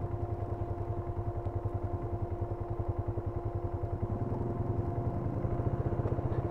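Polaris Sportsman 570 ATV's single-cylinder engine running at low speed with a rapid, even pulse and a steady whine over it, picking up a little about four seconds in.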